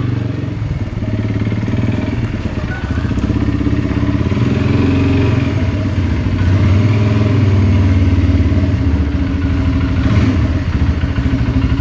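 Side-by-side utility vehicle's engine running at low speed as it is driven slowly, a steady low engine note that gets a little louder about halfway through.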